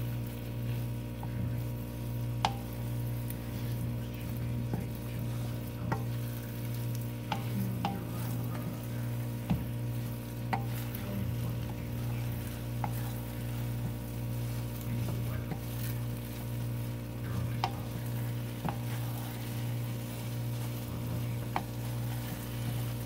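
Wooden spatula stirring and scraping thick, sticky pandan biko (glutinous rice cooked in coconut cream and brown sugar) around a nonstick wok, with occasional sharp taps of the spatula on the pan. The rice is being cooked down until thick and chewy, nearly done. A steady low hum runs underneath.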